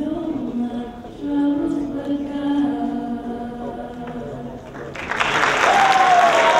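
Voices singing slow, held notes, then applause breaking out suddenly about five seconds in.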